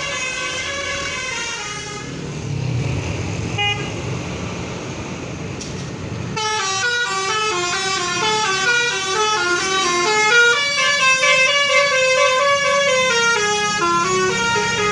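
Indonesian bus 'telolet basuri' musical air horn playing a melody of quick stepped notes. The melody breaks off about two seconds in, leaving a low engine rumble, and starts again about six seconds in, running on to the end.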